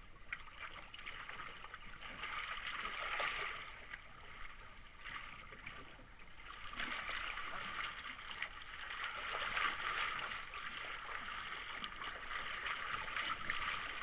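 Sea water washing and rushing around a small drifting boat, a hissing noise that swells and fades irregularly.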